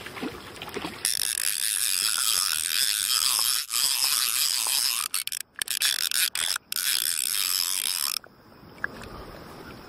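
Fly reel's click-and-pawl ratchet clicking rapidly for several seconds, with a few brief pauses, then cutting off suddenly near the end.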